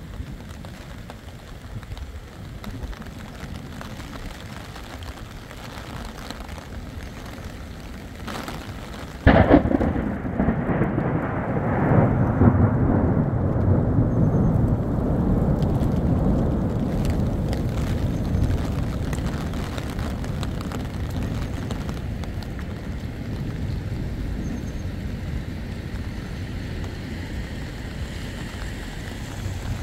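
Steady rain, then about nine seconds in a sudden loud thunderclap whose low rumble rolls on and slowly fades over ten seconds or more.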